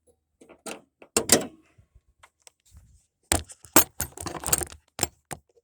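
Sharp clicks, knocks and rattles of hands handling the new plastic camshaft position sensor and its wiring connector: a couple of knocks about a second in, then a busy cluster of clicks for the last two seconds or so.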